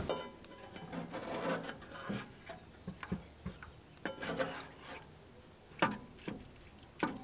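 Spatula chopping and scraping smoked ground beef in a cast iron skillet: irregular soft scrapes and taps against the pan, with a few sharper taps near the end.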